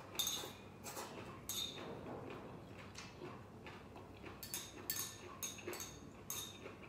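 Close-up eating sounds from a noodle-and-salad meal: chewing, with many short clicks and light clinks of utensils against a bowl, more frequent in the second half.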